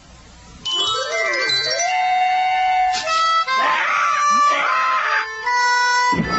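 Cartoon background music: after a quiet moment, a melody of held notes comes in about two-thirds of a second in and carries on, busier in the middle.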